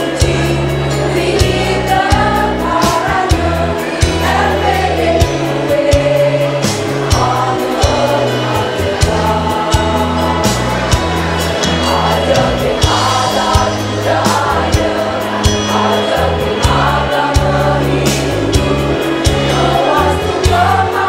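Women's choir singing a march song together, over a bass line that steps from note to note and a steady beat.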